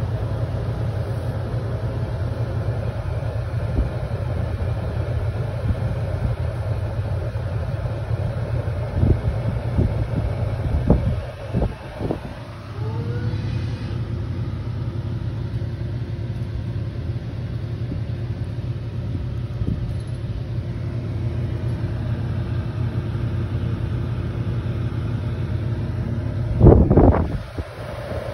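Air cooler's fan running steadily, its blowing air giving a constant low rumble and rush. A few thumps come around the middle and a louder one near the end.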